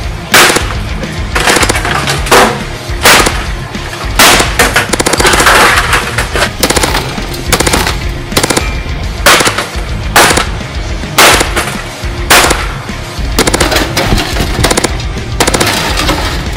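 A metal computer tower case being smashed with a metal bar: a run of loud, sharp metallic impacts, roughly one every second, over background music.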